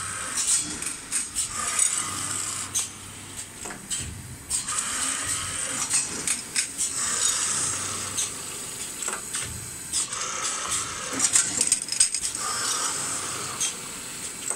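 Copper tube straightening and cutting machine running through repeated feed-and-cut cycles every two to three seconds: a whirring rush during feeding, broken by sharp clicks and metallic clatter from the pneumatic cutting head.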